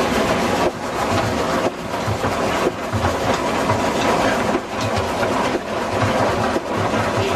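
1920 Emerson-Brantingham Peerless 14/40 steam traction engine running, with a steady rhythmic beat of several low pulses a second.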